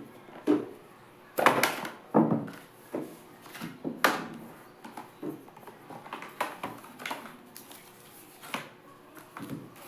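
A phone's cardboard retail box and packaging being handled and opened: irregular knocks, scrapes and rustles, a second or so apart.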